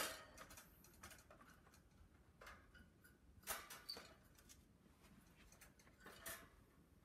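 A wire birdcage with a plastic base being handled and set down: a sharp knock right at the start, then a few faint clicks and rattles.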